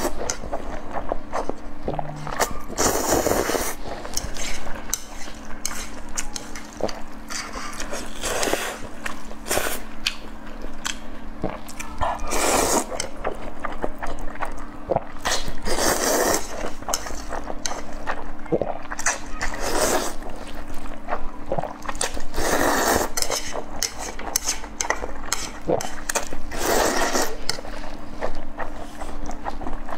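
Close-miked slurping of saucy noodles: about seven long, wet slurps a few seconds apart, with chewing and smacking clicks in between. A faint steady hum sits underneath.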